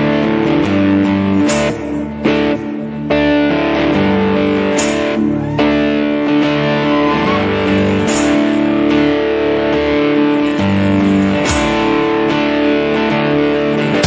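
Electric guitar playing slow, sustained worship chords that change every second or two, with a sharp strummed accent every few seconds.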